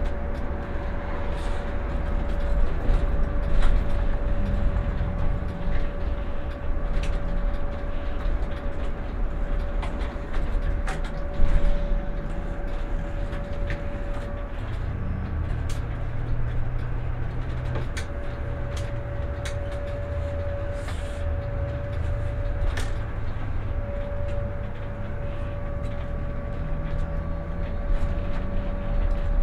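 Van Hool ExquiCity bi-articulated electric bus driving, heard from the driver's seat: a low drivetrain and road rumble with a steady whine over it, and scattered clicks and rattles from the cabin.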